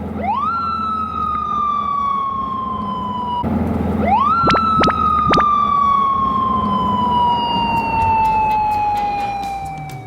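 Japanese police motorcycle siren: it winds up quickly, then slowly falls in pitch, sounding twice, over a low rumble. A few sharp clicks come about halfway through.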